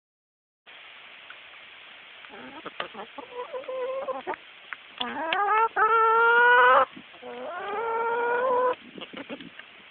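Rhode Island Red chickens calling: three long, drawn-out calls that rise in pitch and then hold, the middle one the loudest, with short clucks in between.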